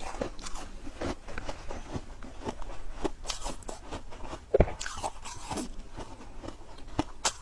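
Freezer frost being bitten and chewed close to the microphone: a run of irregular crisp crunches and crackles, the loudest about four and a half seconds in.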